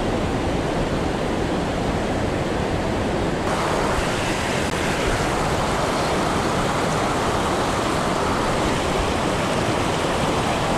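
Rushing river rapids: a steady, loud wash of white water over boulders. About three and a half seconds in the sound turns brighter and hissier.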